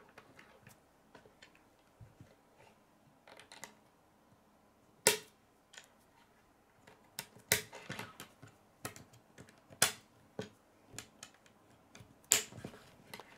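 Plastic K'nex rods and connectors snapping together and clicking on a wooden tabletop as they are handled: scattered sharp clicks, with louder snaps about five, ten and twelve seconds in.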